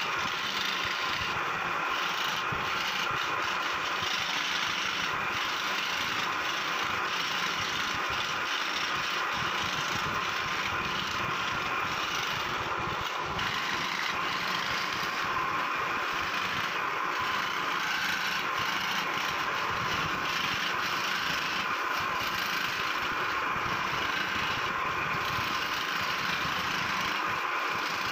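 Scroll saw running steadily, its thin fretwork blade moving up and down through a wooden plate as the calligraphy is cut out, with a continuous even noise.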